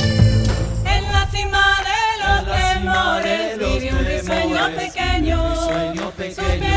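A song playing: singing voice over instrumental backing, with the voice coming in about a second in.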